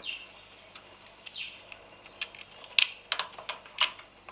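Bolts, spacers and nuts clinking and clicking against a metal mounting bracket as they are fitted by hand: a string of short, sharp metallic clicks, the loudest a little under three seconds in.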